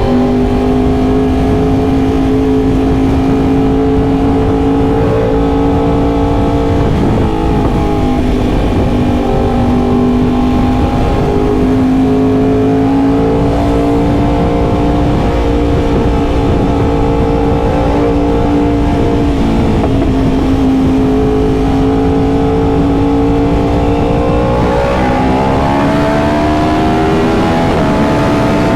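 Yamaha R1M's 998 cc crossplane inline-four running at steady riding revs, its pitch dipping briefly about seven seconds and twenty seconds in and rising as the throttle opens near the end.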